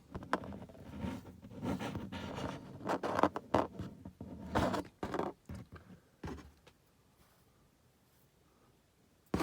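Hand-handling noise from small plastic model figures and their packaging: irregular rustling and scraping that stops about six seconds in.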